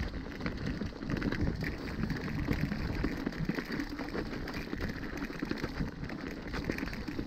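Mountain bike rolling down a rocky, gravelly trail: knobby tyres crunching over loose stones, with a dense run of small clicks and rattles from the bike.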